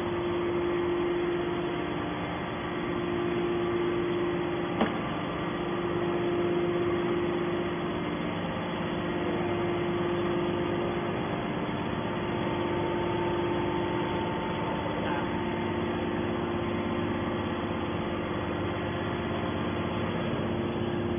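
Hydraulic power unit of a metal scrap baler running steadily, an even hum with a constant tone. A single short click about five seconds in.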